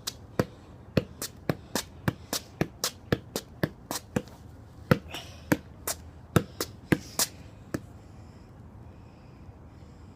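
A football struck over and over in quick, sharp touches, roughly three a second, stopping about eight seconds in.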